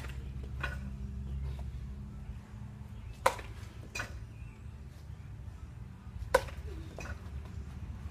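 Baseball bat hitting soft-tossed balls: two sharp cracks about three seconds apart, each followed a moment later by a softer tap.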